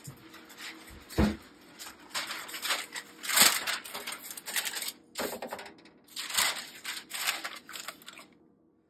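Parchment paper crinkling and rustling in irregular crackly bursts as it is handled and spread over a metal sheet pan, with a low thump about a second in.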